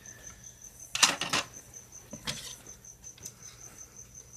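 Clicks and light rattling from the parts of an Xbox 360 hard drive case being handled, with a quick cluster of clicks about a second in and a fainter one a little past two seconds.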